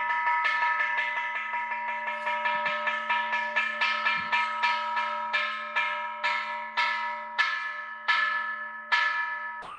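Temple bell struck over and over, each strike ringing on with several clear metallic pitches. The strikes come quickly at first, then slow down and space out toward the end of the run.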